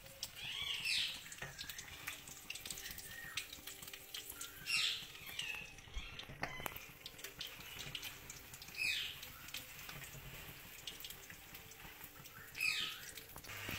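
Spinach and chicken cutlets sizzling as they deep-fry in oil in a kadhai, a steady crackle of fine pops. A high chirp sounds about every four seconds, four times.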